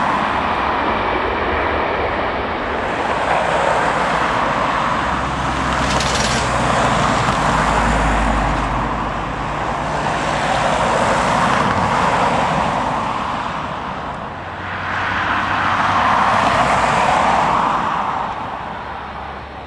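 Airliner engine roar, swelling and easing several times and fading near the end.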